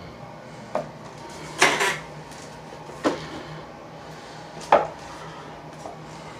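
A few sharp knocks and clatters of hard objects being handled and set down in a kitchen, four in all, the loudest and longest about a second and a half in. A steady low hum runs underneath.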